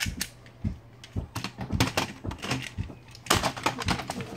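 Plastic toy trains and trucks clicking and knocking together as they are handled: a string of irregular knocks, a little louder about three seconds in.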